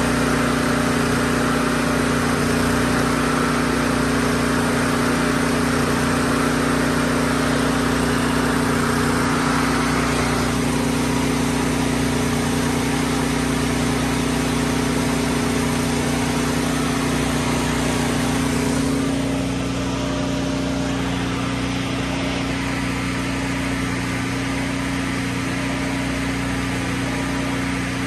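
Miller Big Blue engine-driven welder running steadily with a constant hum, set to DC output to boost a dead excavator's batteries. It gets a little quieter and duller about two-thirds of the way through.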